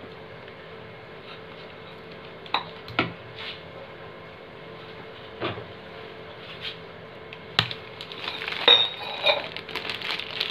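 A few sharp kitchen taps and knocks over a faint steady hum, then a stretch of irregular crinkling and clicking in the last few seconds as a plastic milk pouch filled with hot cornflour paste is picked up and handled.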